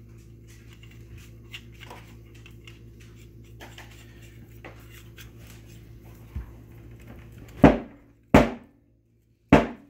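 A steel bar forced through a Liberty Kodiak TL suppressor tube to push out its fouled monocore: faint metal scraping and clicks of handling, then three loud knocks in the last two seconds as the bar is driven against the stuck core.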